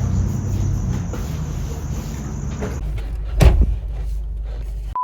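Steady background noise with a thin, high, even tone, which cuts off abruptly a little under three seconds in. A low rumble follows, with one loud knock, and a steady electronic beep tone starts at the very end.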